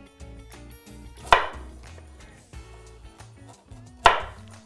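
Kitchen knife chopping through a carrot onto a cutting board: two sharp chops, about a second in and near the end, over soft background music.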